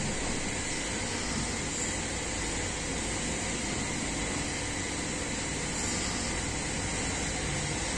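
Steady background hiss with a low hum, with no distinct knocks or clicks.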